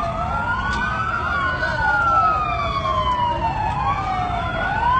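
Two emergency vehicle sirens wailing together, out of step, each pitch rising and falling slowly about once every four seconds.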